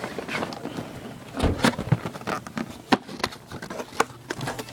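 Cardboard fireworks case being opened and unpacked by hand: irregular rustling and scraping with sharp knocks, and a heavier thump about a second and a half in.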